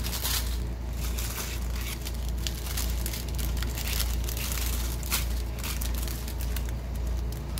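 Small clear plastic bags of diamond painting resin drills crinkling and rustling as they are handled, with many small crackles throughout. A steady low hum runs underneath.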